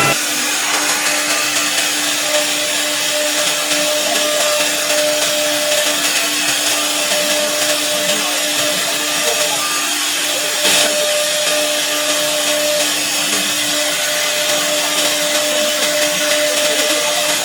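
ELECNC 1830-2S CNC router running steadily, its spindle holding one constant pitch over an even machine noise, with a single short click about ten seconds in.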